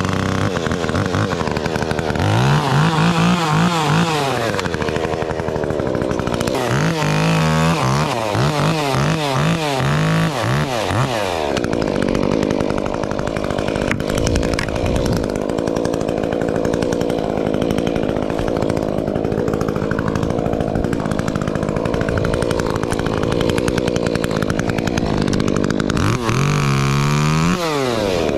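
Top-handle chainsaw cutting ash limbs. The engine revs rise and fall in repeated surges for the first ten seconds or so, then it runs steadily in the cut for most of the rest, and surges again near the end.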